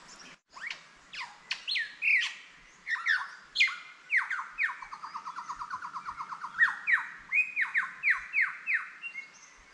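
Superb lyrebird singing: a varied series of loud, sharply falling whistled notes, with a fast run of short repeated notes in the middle and louder falling whistles near the end.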